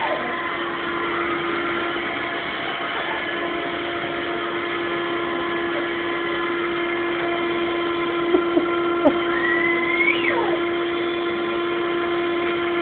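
Vacuum cleaner motor running with a steady hum. About three quarters of the way in, a brief high squeal rises and then falls.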